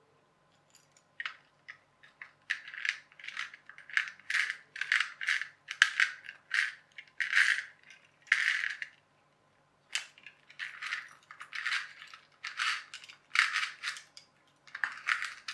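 Small plastic toy-car parts clicking and rattling as they are handled and fitted onto a clear-plastic clockwork gear chassis: a string of short, irregular clicks and rattles, one or two a second.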